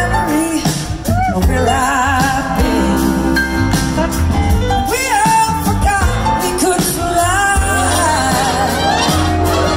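A large live rock band plays: electric guitars, drums and bass with a horn section, and a woman sings the lead with a wavering vibrato. The recording is made from within the concert crowd.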